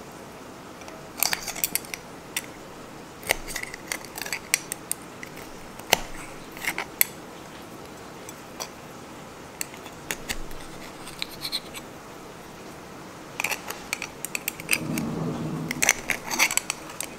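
Horned turban (sazae) shells clicking and scraping as they are handled, with a metal utensil scraping inside a shell near the end to pry out the meat. The sharp clicks come in scattered clusters with quiet gaps between.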